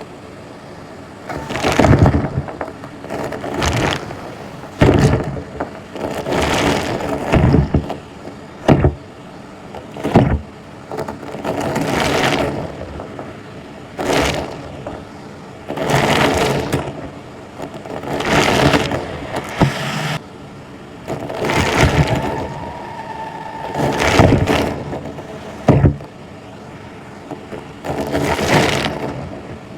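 Vacuum cleaner running steadily, with loud rushing, crackly surges about every two seconds as it is pushed back and forth over the floor.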